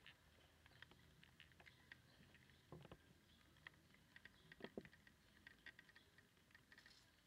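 Faint, scattered patter of light rain, with a couple of soft knocks about three and five seconds in.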